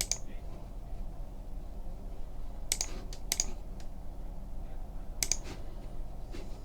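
Light scattered clicking and tapping, with a few sharper, louder clicks: one at the start, two close together in the middle, and one more a little later.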